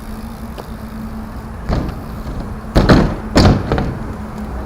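A few hard thuds and knocks, the loudest pair close together about three seconds in, over a steady low rumble.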